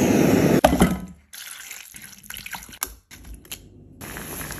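A handheld kitchen blowtorch's flame hissing steadily as it chars leeks and onion, cutting off about a second in. After that come quieter watery sounds with light clicks, from broth with the charred vegetables in a pot.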